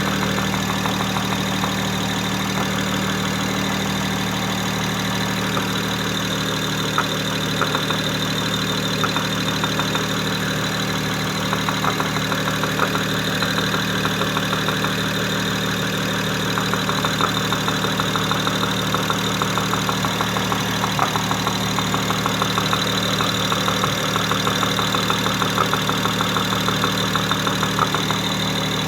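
Engine idling steadily with a quick ticking knock that comes and goes, densest in the second half; the knock comes from one cylinder, which goes quiet when pressed on.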